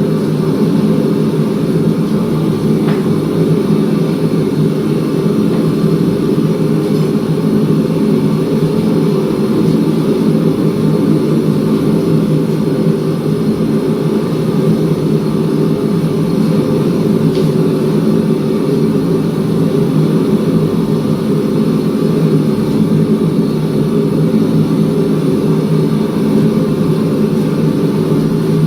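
Shop machinery running steadily: a loud, even drone with a couple of faint ticks.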